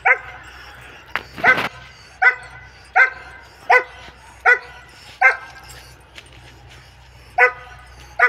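Long-coated German shepherd barking: about nine short, sharp barks, mostly about three-quarters of a second apart, with a pause of about two seconds past the middle.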